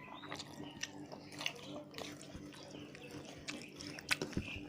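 Close-miked eating of rice with rohu fish curry: irregular wet clicks, smacks and squelches of chewing.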